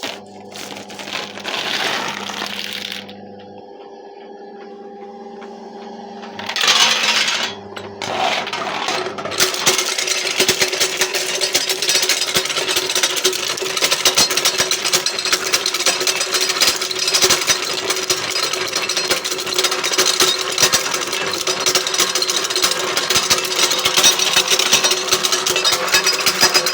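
Electric nut-cracking machine running, its motor humming steadily. There are two brief bursts of noise early on, then from about ten seconds in a loud, continuous clatter of nuts being cracked and shells rattling through the machine.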